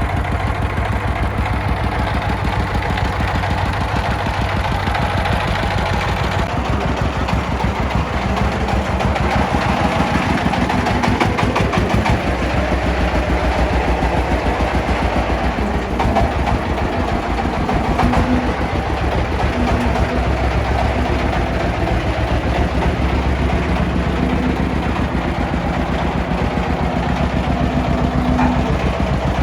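Diesel engines of an excavator and a công nông farm truck running steadily with a fast, even pulse, growing louder and deeper about twelve seconds in.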